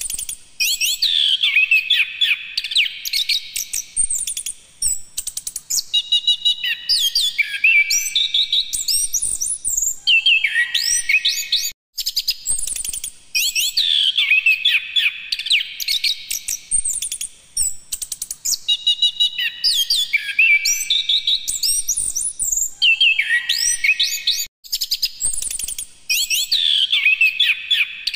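Chestnut-capped thrush (anis kembang) in full song: long, rapid phrases of varied whistles and trills sliding up and down in pitch. The song breaks off briefly twice, about 12 and 24 seconds in.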